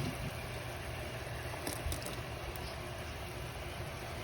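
A pot of pork ribs boiling on a stove: a steady low rumble with an even hiss.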